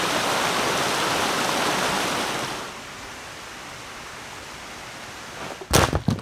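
Steady rushing hiss of a stream running over rocks, which drops to a quieter background hiss about two and a half seconds in. Near the end come a few heavy thumps.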